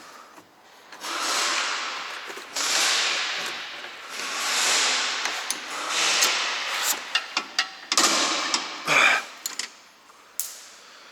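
Hand tools working on a front stabilizer link's fastening: a series of rasping strokes, each about a second long, then a quick run of sharp metallic clicks and knocks near the end.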